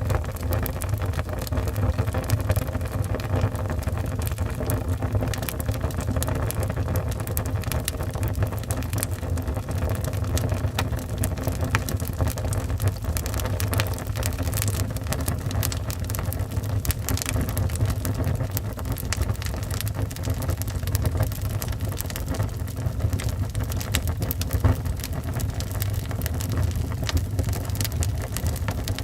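Wood fire burning in a fireplace: a steady low rumble with frequent sharp crackles and pops from the burning wood.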